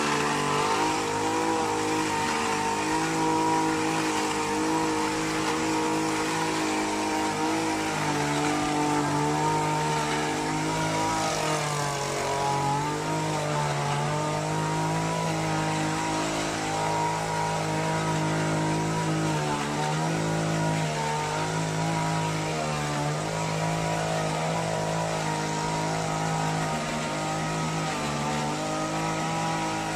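The small petrol engine of an HT230 hedge trimmer running steadily, its speed rising and falling a few times as the throttle is worked.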